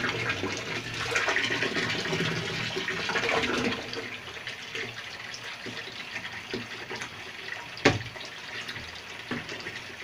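Water pouring from a hose into the plastic wash tub of a VON 10 kg twin-tub washing machine, filling it; the splashing drops quieter about four seconds in. A single brief knock sounds near eight seconds.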